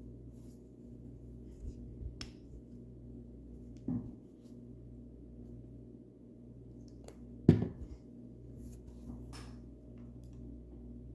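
Handling while painting a bird house: a few light taps and knocks, with a sharper knock about seven and a half seconds in, over a steady low hum.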